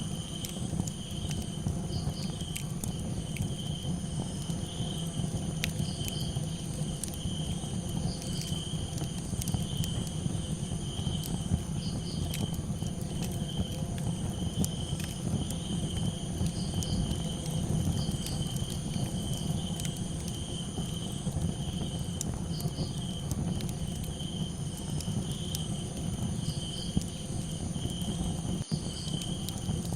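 Crickets chirping steadily over a crackling campfire, with scattered sharp pops over a low steady rumble. Short, higher chirps come every few seconds.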